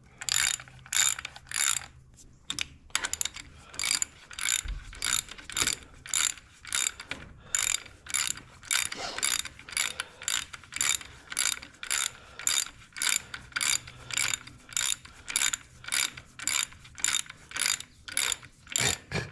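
Socket ratchet clicking in quick repeated back-and-forth strokes, about two bursts a second, as long bolts are run down into the Ford 8N tractor's engine block.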